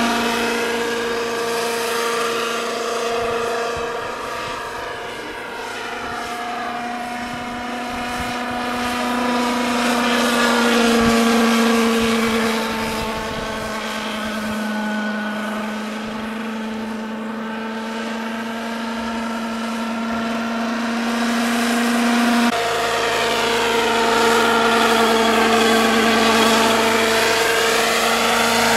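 Radio-controlled scale model Eurocopter EC-120B helicopter in flight: a steady motor and rotor whine that swells and fades as it circles, louder again near the end as it comes in low.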